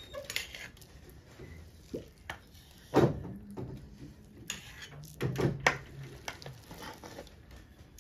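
A metal ladle and spoon clinking and scraping against steel plates and a steel pot while sticky rice is dished out: a string of separate sharp knocks, the loudest about three seconds in.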